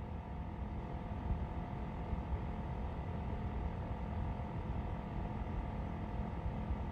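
Room tone: a steady low hum with faint constant noise and no distinct events.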